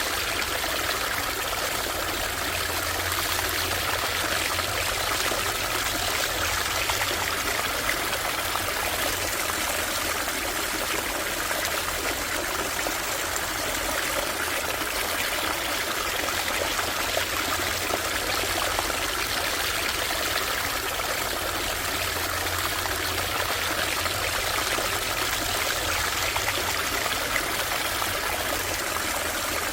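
Small stream flowing and trickling, a steady even rush of water.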